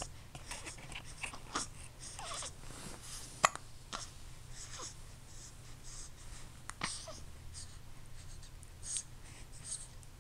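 A series of short, sudden hiccups a second or more apart, the loudest about three and a half seconds in, with soft breathy sounds between them.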